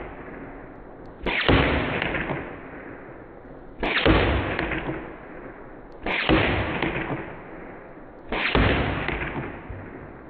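Four deep, slowed-down booms about two seconds apart, each starting suddenly and fading away over about two seconds. They are shooting sounds from a big-bore .357 air rifle, played back in slow motion.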